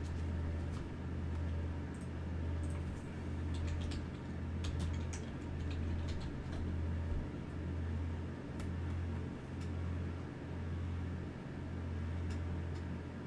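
Steady low hum that swells and fades roughly once a second, with scattered faint clicks over it.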